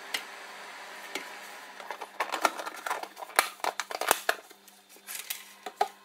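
Silicone spatula spreading and patting wet chocolate frosting on a slice of cake and the parchment paper beneath it: a run of quick sticky clicks and scrapes from about two seconds in, thinning to a few near the end.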